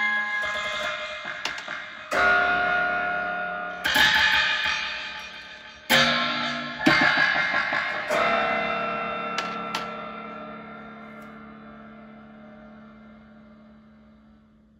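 Homemade piezoelectric spring noisemaker, amplified, being plucked and struck about six times in the first eight seconds, each strike ringing on in metallic, guitar-like tones with some distortion. After the last strike the ringing slowly fades out over about six seconds.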